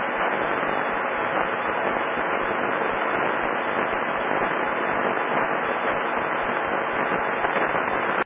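Steady rushing noise over an air traffic control radio frequency from a Mooney M20K's stuck push-to-talk microphone, which keeps the pilot's transmitter keyed and blocks the frequency. The noise cuts off suddenly at the very end.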